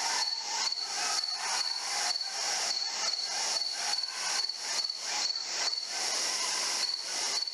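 Night insects calling in a steady chorus: a high, pulsing chirp repeating about three times a second.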